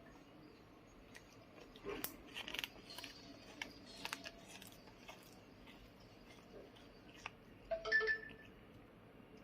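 A small furry pet crunching lettuce leaves in quick crisp bites, strongest in a burst of crunching early on, then scattered nibbling ticks, with a brief louder crunch carrying a short high tone near the end.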